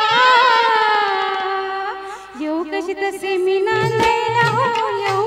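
A woman sings a Marathi lavani, holding long ornamented notes into a microphone over the accompaniment, with a short dip in level about two seconds in. Low hand-drum strokes come in near the end.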